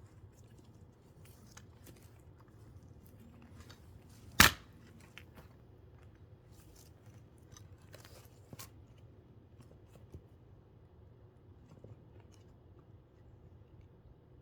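A single sharp strike of an axe into a firewood log, about four seconds in, with faint crackling and small knocks of wood around it.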